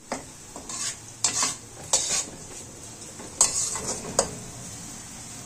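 Sliced onions sizzling steadily as they fry in oil in a wok-shaped metal pan, with a slotted metal spatula scraping against the pan in about nine quick strokes; after about four seconds the stirring stops and only the sizzle goes on.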